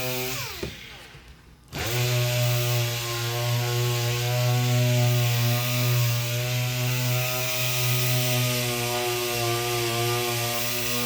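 Electric power sander switched off, its motor whine falling as it spins down for about a second, then switched back on, quickly winding up to full speed and running steadily.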